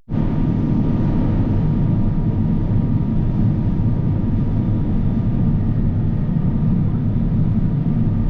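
Harvest machinery's diesel engine running at a steady pace, an even low drone with a faint whine over it.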